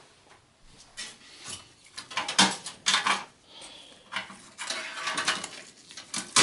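Irregular metallic clanks and rattles from gloved hands handling and moving a bare sheet-steel desktop computer case.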